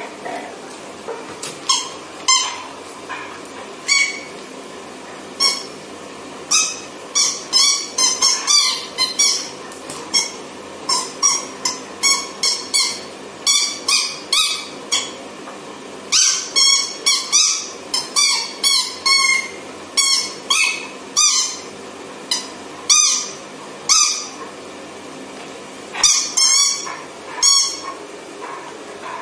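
A dog chewing a squeaky toy, setting off a long run of short, high squeaks, often several a second in quick clusters.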